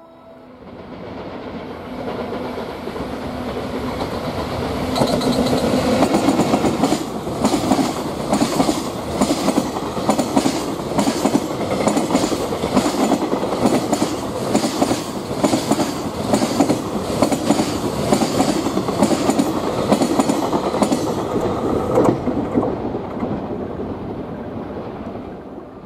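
Container freight train hauled by an EF64 electric locomotive passing close by, its wagon wheels clacking over the rail joints in an even, repeating rhythm. The sound builds over the first few seconds and dies away near the end as the last wagons pass.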